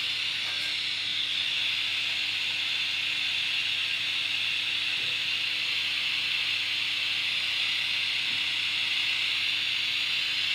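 Steady hiss of white noise played through a phone's speaker by a ghost-box app, left running as a carrier for spirit voices.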